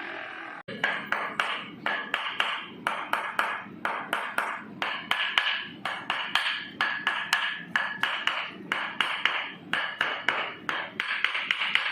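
Rapid, irregular series of sharp taps and clicks in quick clusters of several a second, starting about a second in.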